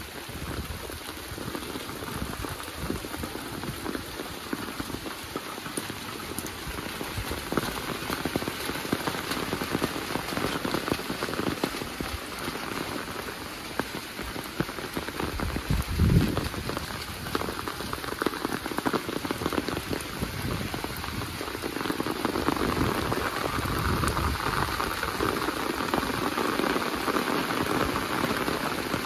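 Steady rain falling, a dense even patter that grows a little louder in the last few seconds. About sixteen seconds in there is one brief low thump.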